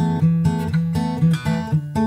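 Background music: strummed acoustic guitar playing chords in a steady rhythm.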